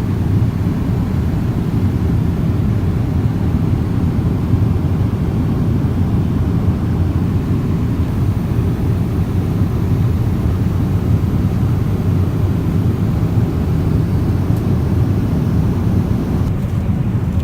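Steady low rumble of cabin noise inside a Boeing 777-300ER airliner in flight, from the jet engines and the airflow over the fuselage.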